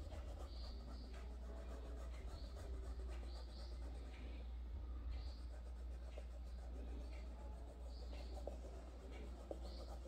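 Paintbrush strokes scraping paint onto canvas, short scratchy strokes recurring every second or so, over a steady low hum.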